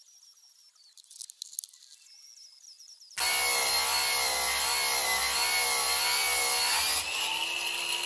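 Angle grinder with a sanding disc running against a cast metal ingot. It starts suddenly about three seconds in with a loud motor whine whose pitch wavers as the disc is pressed on, and it eases slightly near the end. Before that, only faint squeaky scraping.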